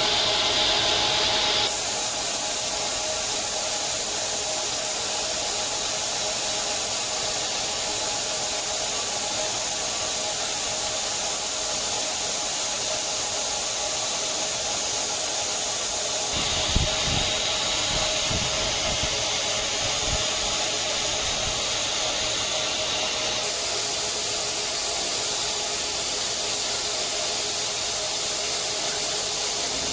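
CNC metal-cutting band saw running and cutting steel bar: a steady hiss with a hum. The hiss shifts in level a few times, and a few low knocks come a little past halfway.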